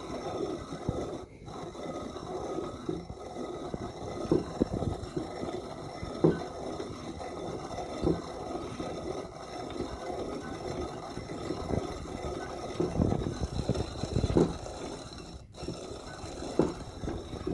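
Old coffee grinder grinding coffee beans, a continuous gritty scraping and rattling with louder crunches every couple of seconds. The burrs are set to a fine grind.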